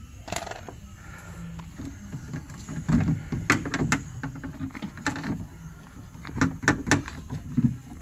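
Hands working inside a car's bare rear door cavity: irregular clicks, knocks and rattles of plastic parts and wiring against the sheet-metal door shell, loudest in two clusters, one near the middle and one toward the end.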